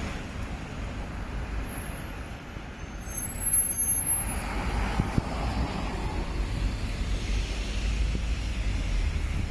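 Road traffic: cars and buses running in slow traffic, a steady noisy rumble that grows stronger toward the end, with a brief thin high-pitched squeal between about two and four seconds in.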